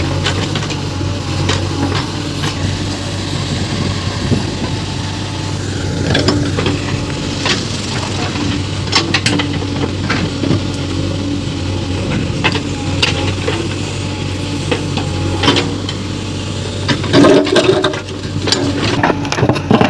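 JCB 3DX backhoe loader's diesel engine running steadily while the machine works, with repeated sharp knocks and cracks over it and a louder burst of clatter near the end.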